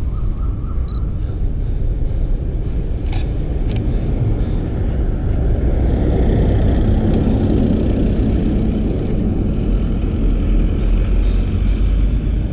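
A car passing on the street: its engine and tyre noise swells over several seconds in the middle, over a steady low rumble. Two short clicks about three seconds in.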